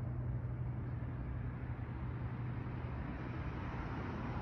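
Steady low-pitched hum of an unexplained droning noise heard in the sky at night, over a constant wash of distant freeway traffic.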